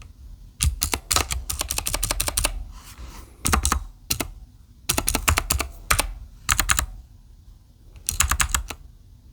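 Typing on a mechanical keyboard fitted with round typewriter-style keycaps: rapid keystroke clicks in short bursts, with brief pauses between them.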